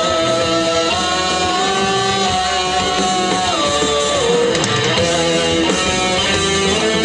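Live rock band playing, with a lead electric guitar holding long sustained notes that bend in pitch over the bass and drums.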